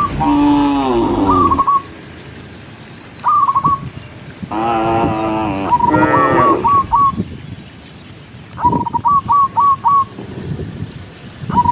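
Cows mooing, three long calls, with quick runs of four or five short, high whistled notes repeating between them.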